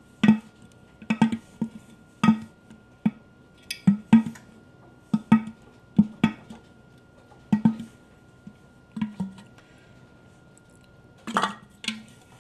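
Measuring cup knocking and scraping in a container while flour is scooped: irregular short knocks and clinks, about one or two a second. A faint steady high tone runs under them.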